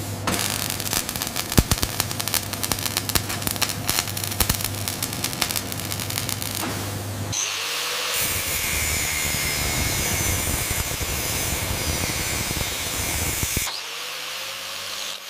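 Arc welding crackling over a steady hum. After about seven seconds it gives way to an angle grinder cutting into a steel plate edge with a steady high grinding noise, which drops away near the end.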